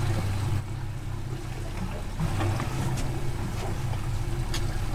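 Boat's twin outboard motors idling with a steady low hum, and a few faint clicks about three and four and a half seconds in.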